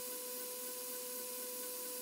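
Tormach 1100 CNC mill cutting the part: a steady hiss with a thin, steady whine over it.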